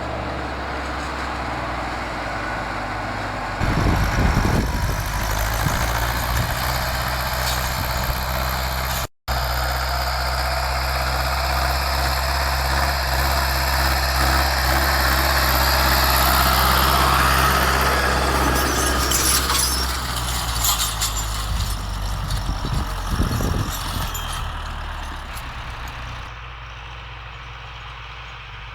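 Farm tractor's diesel engine running steadily while working the field. It gets louder about three and a half seconds in, drops out for an instant near nine seconds, and turns quieter and duller near the end, where the clips are cut together.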